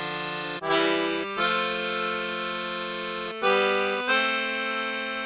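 Accordion-sounding music: held chords, each sustained for a second or two and changing about four times, with no drums.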